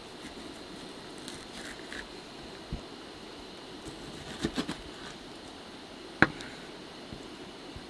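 Kitchen knife cutting raw chicken thigh on a wooden cutting board: a few sharp knocks of the blade against the board, two close together about four and a half seconds in and the loudest about six seconds in, over a steady hiss.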